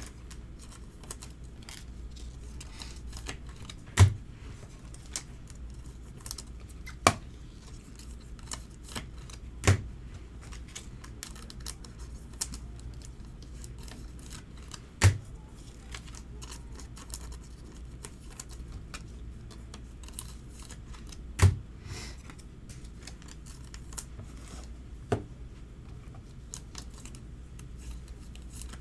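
Clicking and ticking of rigid plastic card top loaders and sleeves being handled, with a sharp knock against the table every few seconds, about six in all.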